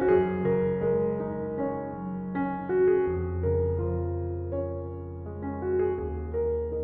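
Background music: a gentle piano melody over held bass notes.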